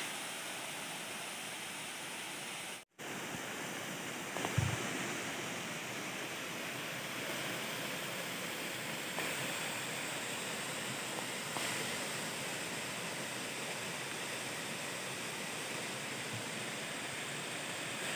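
Steady rush of a tall waterfall, an even hiss of falling water, broken by a brief dropout about three seconds in and a short low thump about a second and a half later.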